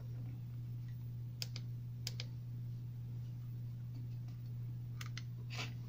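A steady low hum with a few light, sharp clicks: two around one and a half to two seconds in, and a cluster of three about five seconds in.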